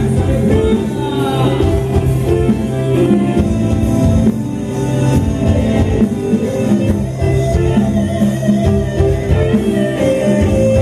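Loud amplified live band music from a trio elétrico sound truck, with guitar and a singing voice over a steady beat.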